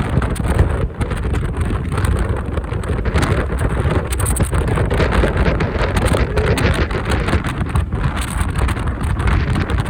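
Heavy wind buffeting on the microphone of a riding motorcycle, with the motorcycle's running and road noise underneath.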